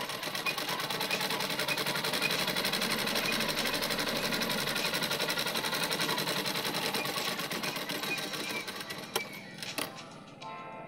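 Straight-stitch sewing machine running a seam through cotton fabric, the needle going in a fast, even clatter; it slows and stops about nine seconds in, followed by a couple of clicks.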